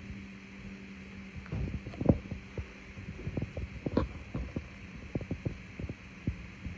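Irregular soft, low thumps, mostly from about a second and a half in, over a steady low hum.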